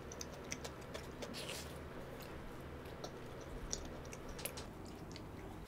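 A person chewing a mouthful of food with the mouth closed, with soft wet smacks and small clicks scattered throughout.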